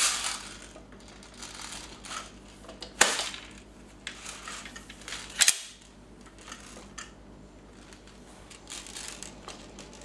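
Thompson 1928 replica airsoft electric gun firing single shots: sharp clacks at the start, another about three seconds in, and two in quick succession a little past halfway, with softer handling rattles between.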